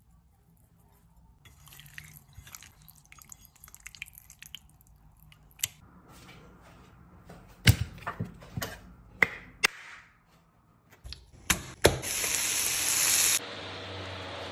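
Kitchen cooking sounds in quick succession: faint crackling of chicken frying in a pan, a run of knife knocks on a cutting board, then a loud hiss that stops abruptly a second or so later.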